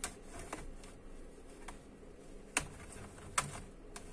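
Plastic snap clips of an Acer Aspire ES1-571G laptop's top cover clicking loose as a plastic pick is worked along the seam between cover and base. A few sharp, irregular clicks.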